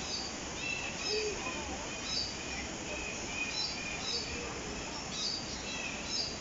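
Many aviary birds chirping and calling over one another: short high chirps come several times a second over a steady low background hum.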